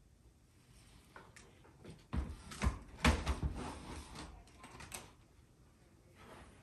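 Metal housing of an electric fireplace knocking, clunking and scraping as it is set into its wall-mounted frame, a run of clunks about two to five seconds in, the loudest just after three seconds.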